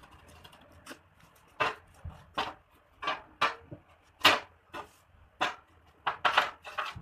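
A run of about a dozen short, sharp strokes or knocks, irregularly spaced about half a second apart, starting about a second in, like hand-tool work striking or scraping material.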